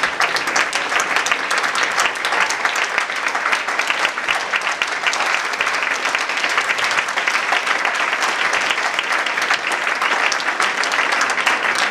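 Audience applause, a dense and even clapping of many hands.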